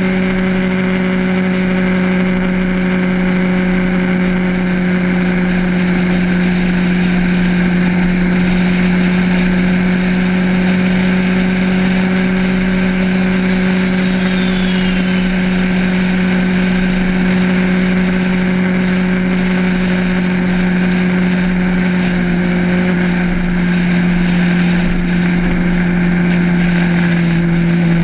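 Motorcycle engine running at a steady highway cruise, a constant drone with wind rushing over the microphone. The engine note drops a little near the end.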